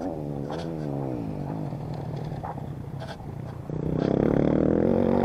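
Dirt bike engine revving up and down, then a louder, steady engine note that sets in suddenly about four seconds in.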